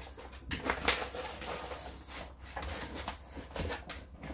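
Crinkling and scuffing of a sheet of metallic heat-transfer vinyl being peeled off and handled on a flexible plastic cutting mat, with several soft taps, the sharpest about a second in.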